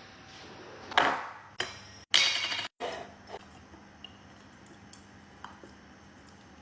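A few sharp clinks and knocks from handling glassware in the kitchen, the loudest about a second in. Then a short rattling clatter cuts off suddenly, and only faint small ticks follow.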